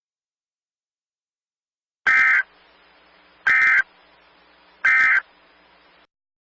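Emergency Alert System end-of-message data tones: three short, loud bursts of buzzy digital tone about a second and a half apart, the signal that closes an alert message.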